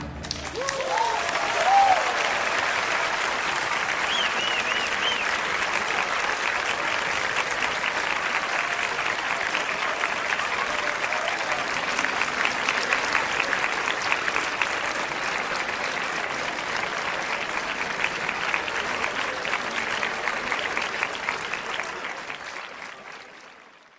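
Large crowd applauding steadily, with a few voices cheering in the first few seconds; the applause fades out at the end.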